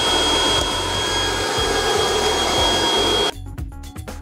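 Leister hot air blower running steadily, a loud rushing blast of air with a steady high whine, which cuts off suddenly about three seconds in. Quieter background music follows.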